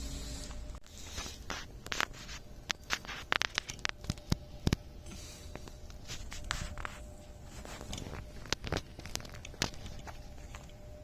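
Irregular clicks, taps and light knocks of hand tools and car parts being handled during dismantling work, densest from about two to five seconds in.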